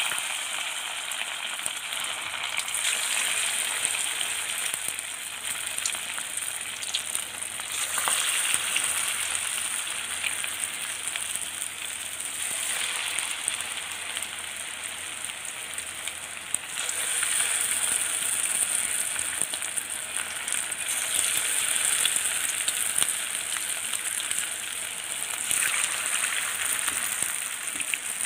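Bondas of idli batter deep-frying in hot oil in a kadai: a steady sizzle that surges louder several times.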